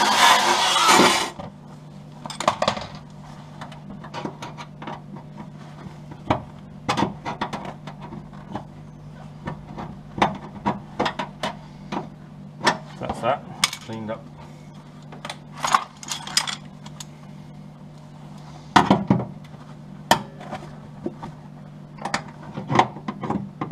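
A wire wheel on a power drill runs against the steel wing edge, stripping paint, and stops about a second in. Then scattered short metallic clicks and clinks as locking pliers are handled and clamped onto the wing lip, over a steady low hum.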